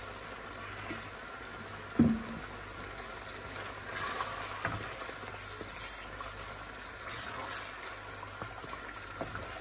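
Cooking oil poured into a hot kadhai of beef trotter masala, the masala sizzling and bubbling as it starts to fry while a wooden spoon stirs it. A single sharp knock about two seconds in.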